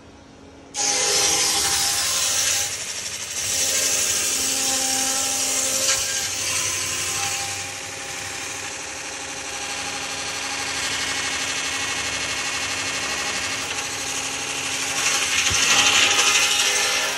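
Sawmill saw cutting lengthwise through a teak log: the blade bites into the wood suddenly about a second in and rasps steadily through the cut, growing louder again near the end.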